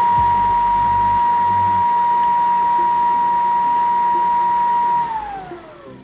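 PPA Brutalle industrial sliding-gate motor running at speed with a steady whine, then winding down in pitch about five seconds in. With new bearings fitted, this is its normal running sound, free of the earlier bearing noise.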